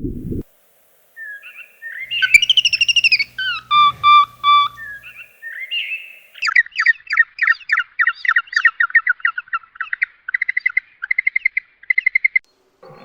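A bird calling: whistled and chirping notes for a few seconds, then a long run of rapid repeated chirps, about six a second, that breaks into short groups near the end.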